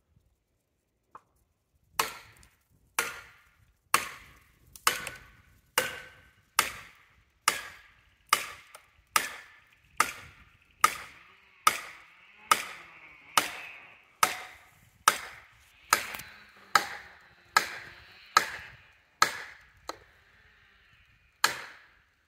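Axe blows chopping into a standing tree trunk: about twenty sharp, evenly paced strokes a little under one a second. They pause briefly near the end, then start again.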